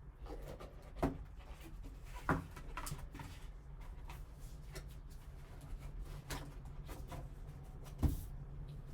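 Cardboard card box and its packaging being handled and opened by hand: a few light knocks and taps, about a second in, at two seconds and near the end, with faint rustling and clicks between them over a low steady hum.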